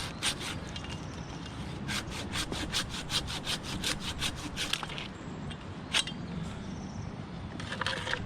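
Dry wood being worked: a quick even run of rasping strokes, about six a second, then a single sharp crack about six seconds in.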